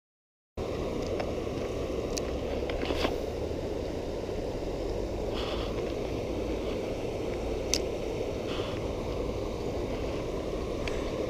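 Steady rush of flowing river water, starting about half a second in, with a few faint clicks and rustles from handling the spinning rod and reel.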